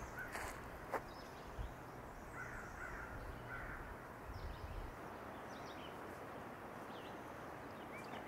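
Faint outdoor ambience: scattered short bird calls and chirps over a low rumble that dies away about five seconds in, with one sharp click about a second in.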